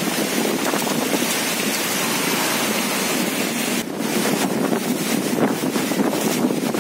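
Strong wind blowing hard across the microphone, a dense, steady rush of noise. About four seconds in the sound changes to a rougher buffeting with many crackling pops.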